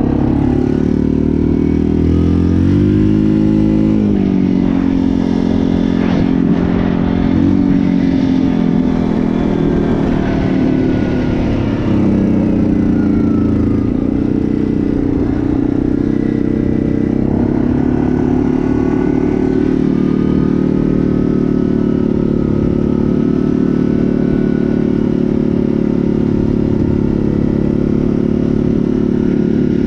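Yamaha Grizzly ATV's single-cylinder engine running while under way, its pitch rising and falling with the throttle in the first half, then holding steady at cruise.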